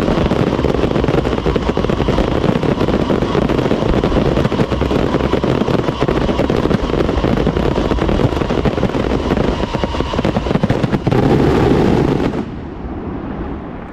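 Fireworks going off in a dense, continuous barrage of rapid bangs and crackling, like a finale. The barrage stops abruptly about twelve seconds in.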